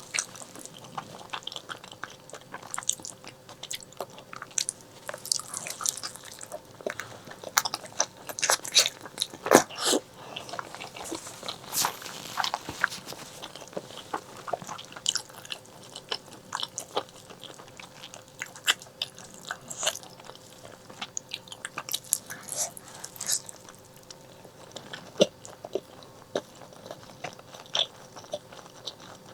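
Close-miked eating of braised pork leg: irregular bites, chewing and mouth smacks, with many sharp clicks.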